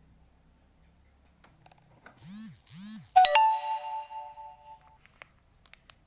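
Two short swooping boing-like tones, then a bright bell-like ding, a few steady tones that ring and fade over about a second and a half: an edited-in chime sound effect.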